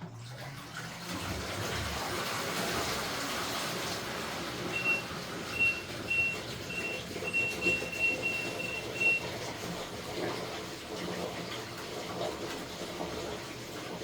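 LG top-load washing machine running its tub-clean cycle, with water rushing and sloshing in the drum. Between about five and nine seconds in there is a string of about ten short, high electronic beeps of one pitch.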